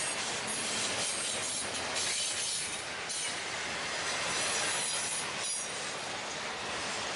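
Norfolk Southern train cars rolling past at steady speed: continuous rumble of steel wheels on rail with a few clacks and a faint high-pitched wheel squeal.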